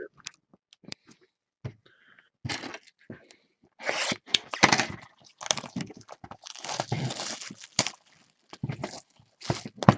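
Trading-card packs being torn open and their crinkly foil wrappers handled: irregular tearing and crackling, sparse at first and busiest in the middle.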